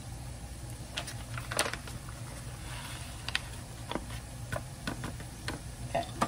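Paper packet of brown gravy mix being handled and opened: crinkling and rustling with scattered small clicks and taps, and a short burst of rustling about three seconds in.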